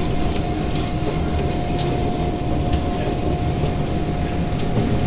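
SMRT C151 metro train running at speed on elevated track, heard from inside the car: a steady rumble of wheels on rail with a steady high whine over it and a few faint clicks.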